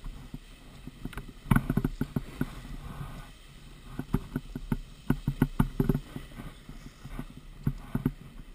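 Irregular knocks and scrapes of riding down a packed-snow ski slope, picked up through an action camera's housing as it is jostled, coming in clusters of several sharp knocks a second over a low rumble.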